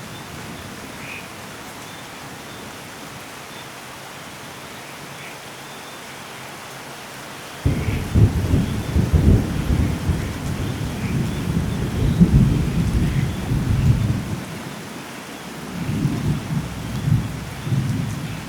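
Steady rain, then a little under halfway through a thunderclap breaks in suddenly and rolls on as a deep rumble. The rumble fades briefly and swells again near the end.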